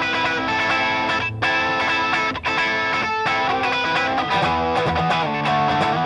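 Electric guitar played through a Grind Customs Catch 22 overdrive pedal, a Timmy overdrive clone: strummed, overdriven chords.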